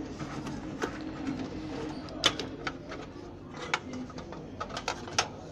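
Light clicks and knocks of power-supply cables and plastic drive power connectors being handled and plugged in inside a metal computer case, over a low steady background murmur.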